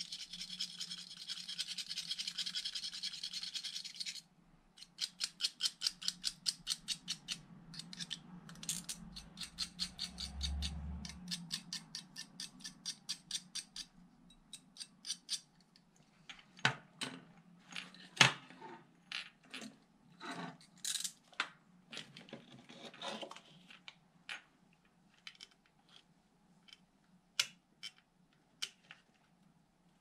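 Scraping and scrubbing on the metal contact points of a CB antenna base to clean them. It is a fast continuous scrubbing at first, then about four strokes a second until about halfway, and after that scattered clicks and light taps.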